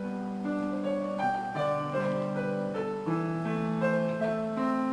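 Intro music on piano: a slow melody of held notes over long low notes, the upper notes changing about every half second.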